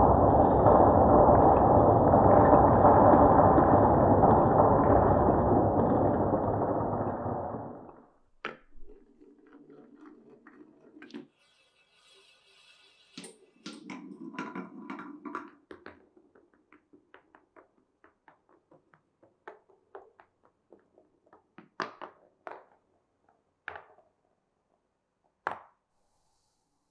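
Marbles rolling down a wooden marble run: a loud, dense rumble that dies away about eight seconds in, then two shorter rolls and scattered sharp clicks as single marbles drop and knock against the track.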